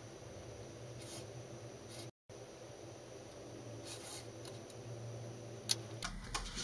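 Hobby knife blade scraping as it cuts along the edge of a thin vacuum-formed plastic wrap on a cutting mat: a few faint scratchy strokes and a sharp click near the end, over a low steady hum.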